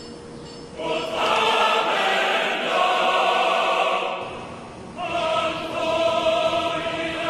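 Choral music: voices holding long chords in two swelling phrases, the first beginning about a second in and fading away, the second entering about five seconds in.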